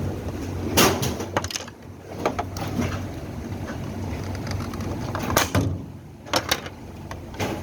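Scattered sharp knocks and clicks of parts and tools being handled while a washing machine is taken apart, about six in all, over a steady low hum.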